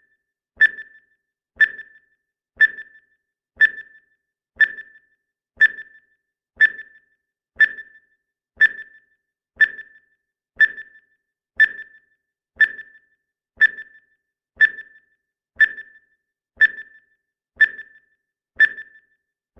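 Countdown timer's clock-tick sound effect: short, sharp ticks with a slight ring, one every second, evenly paced.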